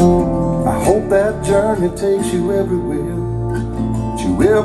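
Recorded music playing back: acoustic guitar with a wavering melodic lead line.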